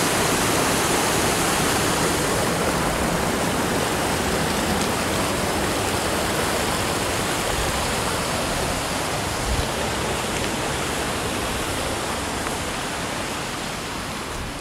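Shallow, rocky creek rushing over stones: a steady hiss of running water that grows a little quieter near the end.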